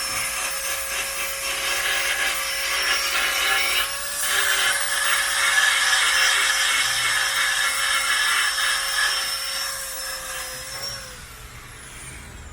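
Electric grinder running on metal, a steady whine under a rough grinding noise; it is switched off about eleven seconds in and winds down with a falling whine.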